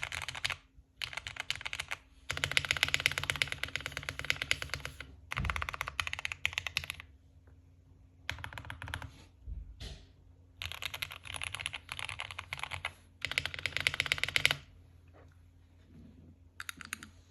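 Typing on a computer keyboard: fast runs of key clicks in bursts of a second or two, broken by short pauses.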